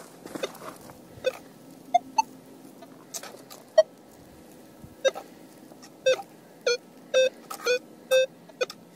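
Metal detector giving a dozen or so short beeps as its coil sweeps over a pebble beach. The beeps come more often in the second half. Most are one low tone, with a couple of higher ones about two seconds in.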